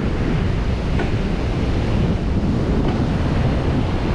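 Sea surf washing onto a sandy beach, mixed with steady wind buffeting the microphone.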